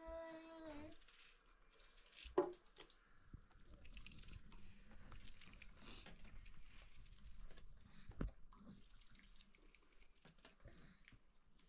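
Hard-boiled eggshells being cracked and peeled by hand: faint crackling and small clicks, with two sharper knocks about two and eight seconds in.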